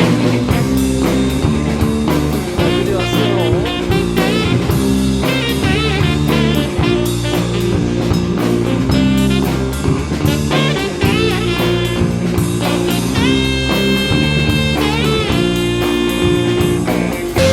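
Background rock music: an instrumental stretch of a song with electric guitar playing bent, wavering notes over bass and drums.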